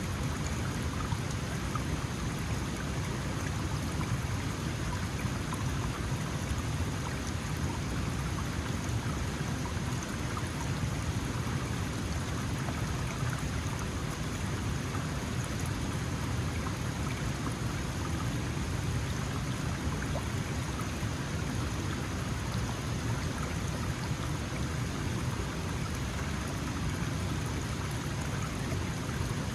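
Small mountain stream flowing steadily over stones, an even rushing of water.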